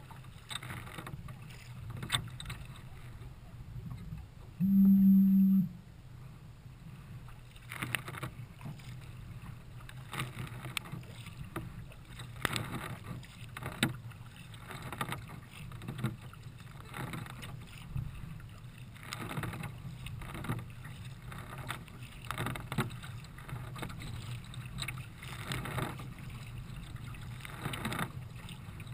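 Kayak paddle strokes splashing through choppy water, about one a second, as a Nelo racing kayak is paddled along. About five seconds in, a loud steady low tone sounds for about a second.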